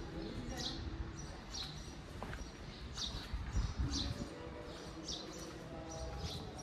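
A bird chirping over and over, a short high note about once a second, over a low steady background rumble.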